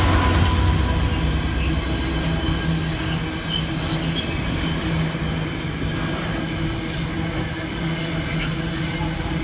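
Container wagons of a freight train rolling past at speed: a steady rumble of wheels on the rails, with a thin high whine joining about two and a half seconds in.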